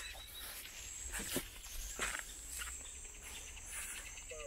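Insects calling at a riverbank: a steady high buzz, joined about three seconds in by a fast, even pulsing trill. A few soft knocks sound about one and two seconds in.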